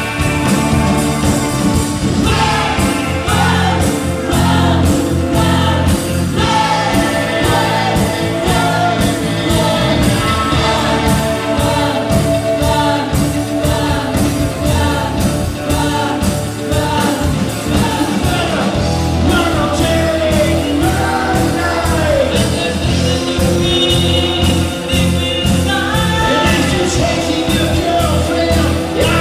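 Live rock band with a male lead vocal over keyboards, electric guitars and drums, playing to a steady beat.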